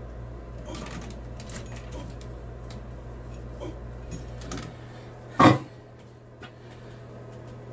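Plastic sink drain trap parts being handled and pushed into the wall drain: scattered light clicks and taps, then one loud knock about five and a half seconds in.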